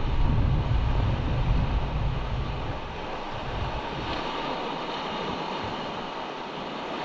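Wind buffeting the microphone over the steady hiss of surf washing across shore rocks; the heavy wind rumble drops away about three seconds in, leaving mostly surf.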